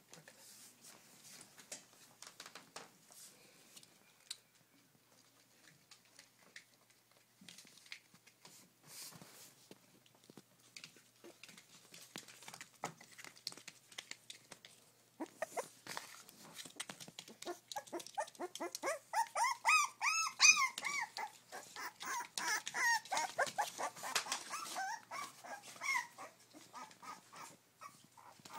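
Month-old poodle puppies whimpering and yipping in a string of short, high, rising-and-falling squeals that start about halfway through, after a stretch of faint rustling and scuffling on plastic sheeting as they move about.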